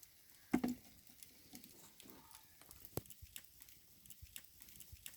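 Light rain pattering, with scattered faint drops ticking irregularly and a brief louder knock about half a second in.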